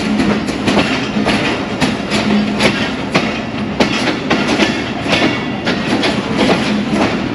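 Moving passenger train heard from aboard a coach: the wheels clack over rail joints at an uneven pace of about two clacks a second, over a steady rumble and a low hum.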